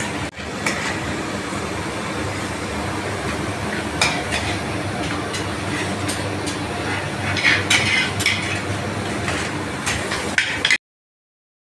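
Occasional clinks and clatters of plates and utensils over a steady kitchen hum, with a few sharper knocks about four seconds in and again near eight seconds. The sound cuts off suddenly near the end.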